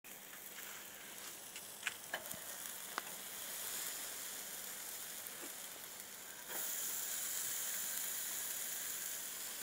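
Raw fish fillets sizzling on the grate of a small charcoal kettle grill over hot coals, a steady hiss with a few sharp pops early on. The sizzle steps up louder about two-thirds of the way through.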